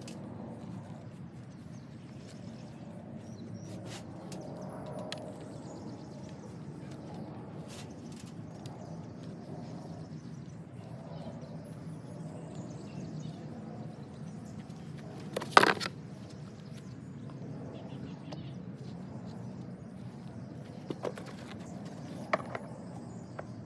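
Light handling noises from plastic planter parts: scattered clicks and rustles over a steady low background, with one sharp knock about two-thirds of the way through and a couple of smaller knocks near the end.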